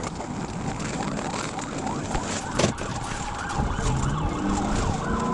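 Police siren wailing up and down over engine and road noise inside the pursuing patrol car, with one sharp knock about halfway through.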